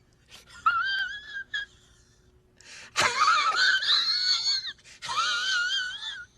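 High-pitched wavering wail in several bursts: short cries in the first two seconds, then two long, quavering ones from about halfway, the first starting with a sharp click.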